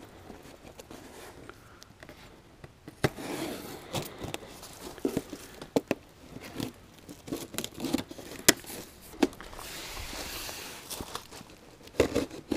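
Cardboard box being cut open with a small key knife: scattered scrapes, taps and sharp clicks as the packing tape is slit and the flaps worked loose, with a longer tearing rasp about ten seconds in.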